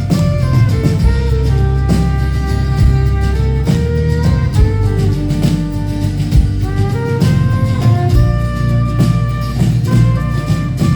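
Live band playing an instrumental passage near the end of a song: held melody notes moving step by step over a steady drum beat.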